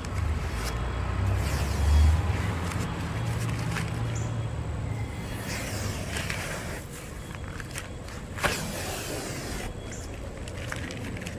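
Green Frog painter's tape being peeled off a fiberglass RV roof by hand in long pulls, under a low rumble that is loudest about two seconds in and dies away by about five seconds, with one short sharp sound near the end.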